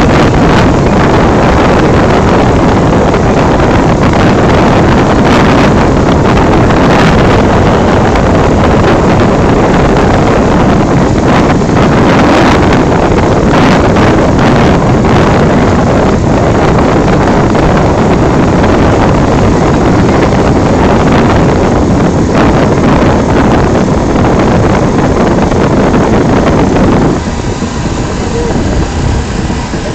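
Wind buffeting the phone's microphone over the steady noise of a moving glass-bottom boat's engine and the water it runs through; near the end the noise drops suddenly and gets duller.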